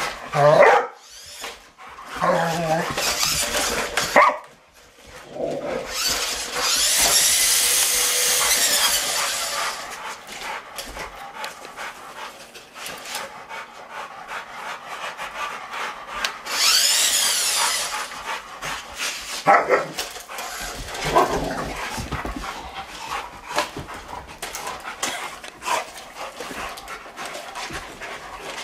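Rottweilers barking and whining at a remote-control toy truck. The truck's small electric motor whines in two loud spells of a few seconds, rising and falling in pitch, one about six seconds in and another around the middle.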